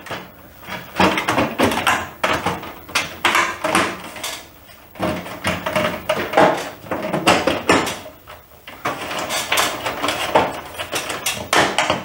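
Painted sheet-metal ballast cover of a fluorescent light fixture being pushed and worked back into place over the wires, with repeated irregular metallic scrapes, rattles and clicks.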